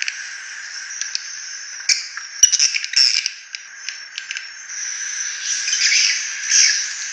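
Swiftlet lure call recording: dense, overlapping high twittering and chirping of swiftlets over a steady high hum, a sound the uploader calls rough and harsh. The chirping grows louder about three seconds in and again near the end.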